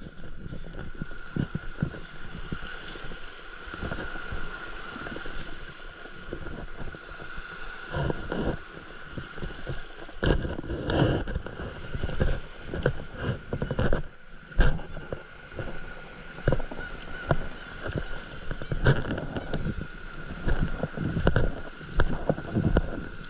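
Close handling noise from a plastic waterproof phone pouch on a paddleboard, irregular knocks and rustles, over shallow water sloshing around the board. A thin steady high tone runs underneath.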